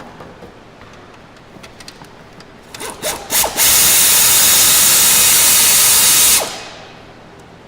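A power tool spinning off the 10 mm nut on the alternator's battery positive terminal: a few short trigger blips about three seconds in, then a steady run of about three seconds that stops.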